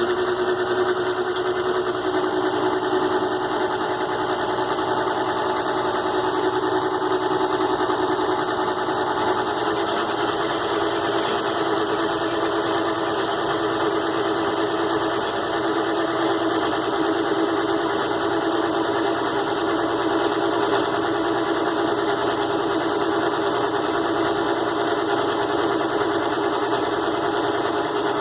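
ZhouYu 6-in-1 mini lathe's small DC motor running at a steady speed with an even hum, turning aluminium stock while an O-ring groove is cut.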